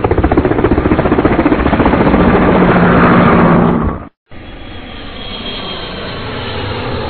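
Helicopter rotor chopping in a fast, even beat that grows louder, cutting off sharply about four seconds in. After a brief gap, a quieter steady aircraft engine noise with a faint high whine follows.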